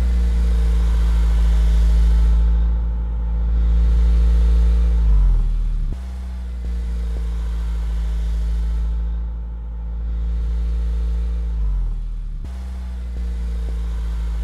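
Recorded truck engine sound laid over the animation, running steadily. The engine note sags in pitch and then snaps back about every six seconds, like a looped recording.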